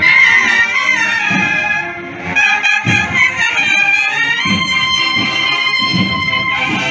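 Marching band of bugles and trumpets playing a march, with long held notes in the second half and a recurring low beat underneath.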